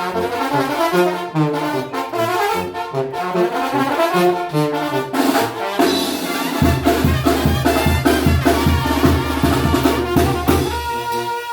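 Banda brass band playing an instrumental passage: trumpets and trombones carry the melody over stepping bass notes with drums. About halfway through, the band swells into a long held low chord under rapid drum strokes, then drops back to lighter brass near the end.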